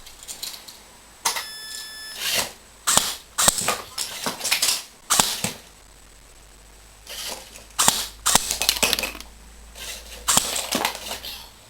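Toy gun shots and pellets clattering against a Lego pop-up target mechanism, in clusters of sharp clicks with quiet gaps between them. A brief steady tone sounds about a second in.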